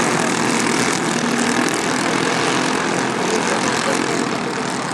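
Racing kart engine running steadily at speed, with a rushing noise over it.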